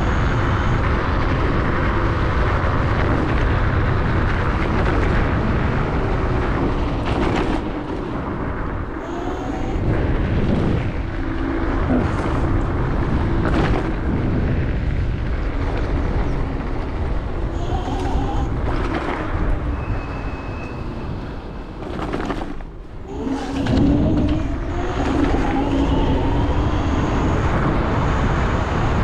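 Wind buffeting the helmet-chin microphone and tyre rumble from a Dualtron Thunder electric scooter riding along. A little after three-quarters of the way through the noise dips briefly, then the dual hub motors' whine rises in pitch as the scooter picks up speed again.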